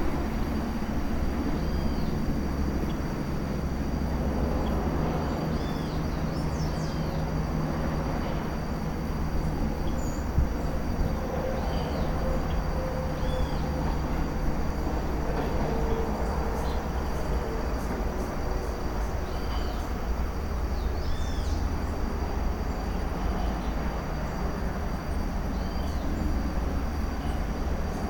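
Forest birds calling: a short arched chirp, repeated every couple of seconds, over a steady thin high-pitched drone and a continuous low rumble.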